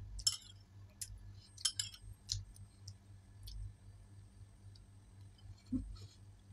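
Quiet, scattered soft clicks of someone eating rasmalai with a metal spoon from a small bowl, most of them in the first couple of seconds, over a faint steady low hum.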